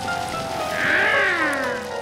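Cartoon background music with slow, held notes stepping down, and one pitched call that rises and then falls over about a second, starting about two-thirds of a second in.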